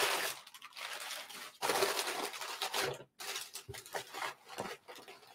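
Packaging rustling and crinkling in irregular bursts as a mug is unwrapped from its box.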